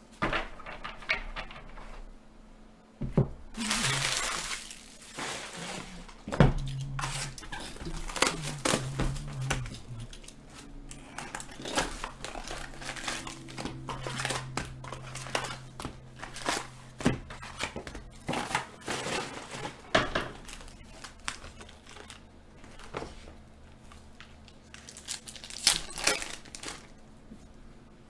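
Upper Deck hockey card pack's foil wrapper crinkling and crackling as it is handled and torn open, with cards shuffled by hand. It comes in many short bursts, with a longer rustle about four seconds in and loud crackles near the end.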